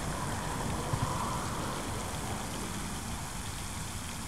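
Wind buffeting the microphone: a steady hiss over a rough, fluctuating low rumble, with one small knock about a second in.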